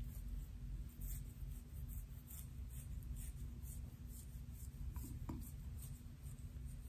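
Fingernails and a plastic pick comb scratching through short hair on the scalp: a run of light, close scratching strokes about two a second. A steady low hum sits under it.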